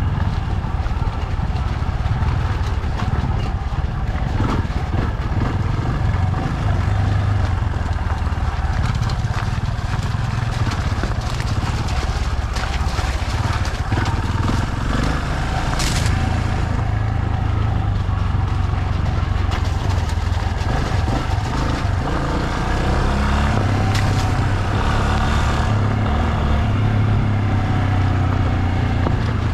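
Motorcycle engine running steadily while riding, with its pitch climbing in the last several seconds. A couple of sharp knocks come through, one about halfway through.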